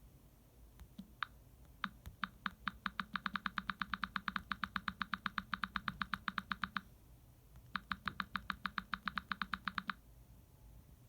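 Uber GO button sounding when pressed: a rapid run of sharp, even clicks that speeds up to about eight a second and lasts about five seconds, then stops and starts again for a shorter run of about two seconds.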